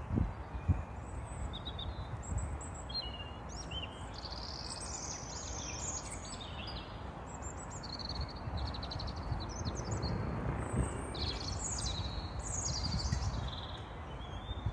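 Birds chirping and trilling in short high calls over a steady low outdoor background noise.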